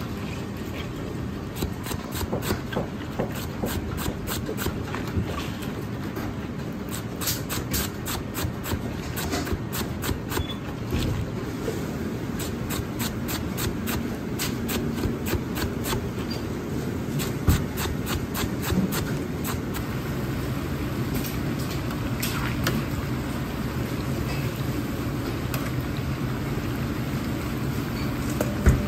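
Chinese cleaver finely slicing long green onions on a cutting board: quick, regular knife taps, thickest in the first half and thinning out later, over a steady low hum.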